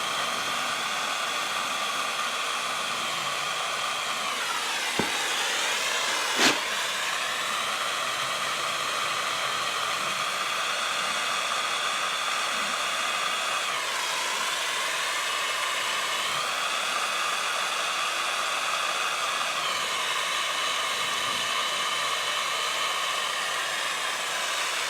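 Handheld gas torch flame running with a steady hiss and a whistling tone that dips and shifts in pitch a few times, as it heats a fluxed patch on a radiator for soldering. Two short clicks about five and six and a half seconds in.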